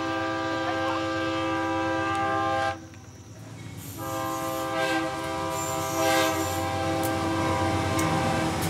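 Freight train locomotive's air horn sounding a long, steady chord, breaking off almost three seconds in and sounding again about a second later, over the low rumble of the train.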